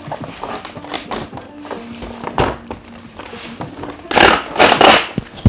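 Clear plastic wrapping on a toy box rustling and crinkling as it is handled on a table, with a few light knocks, over faint background music; two loud bursts of crinkling about four seconds in.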